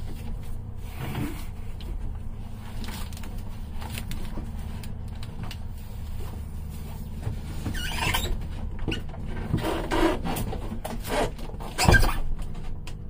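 Rustling, scraping and knocking of a person reaching in among hoses in a cramped boat compartment, groping for a cable, over a steady low hum; a sharper knock comes near the end.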